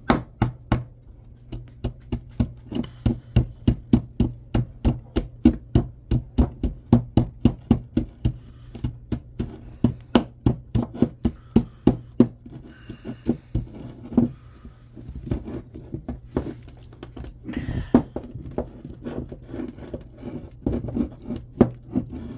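Rapid series of sharp knocks from hand tools working on an electric motor to strip out its copper windings. The knocks come two or three a second and fairly evenly at first, then more irregular with some scraping in between.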